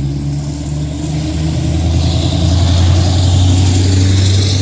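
Road traffic at a busy corner: a vehicle engine running close by with a steady low hum that swells louder about two seconds in, with a hiss over it.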